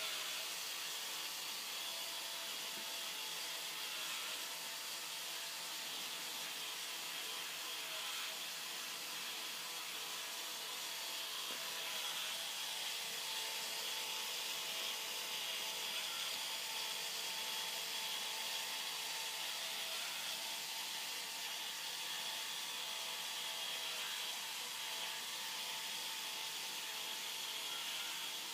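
K'NEX ball machine running: the small electric motors driving its lifts and its plastic parts whir and rattle steadily.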